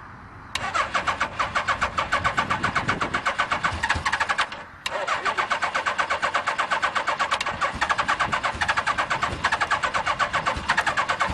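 Suzuki GS850G air-cooled inline-four being cranked over by its electric starter, choke on, in two long cranking runs with a short break between them about four and a half seconds in. Each run is a rhythmic pulsing over the starter's whine. It is a cold start after months of sitting, and the engine does not catch.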